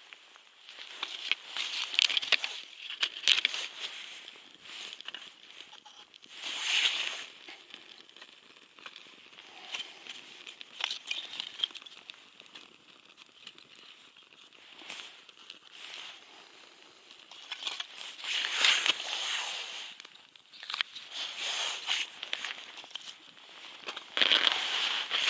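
Irregular crinkling and crackling bursts of dry kindling being handled and broken for a small wood-chip camp stove. The louder stretches come about 2 s in, around 7 s, and from about 18 s to the end.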